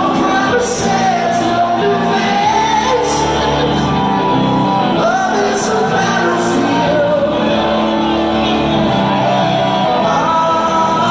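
Live rock band playing loudly: a male lead singer sings over electric guitar and drums, with cymbal crashes every second or so. Heard from the audience, with the echo of a large hall.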